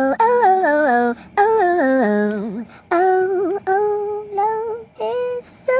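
Music: a high voice singing a wordless melody in quick descending runs of short notes, phrase after phrase.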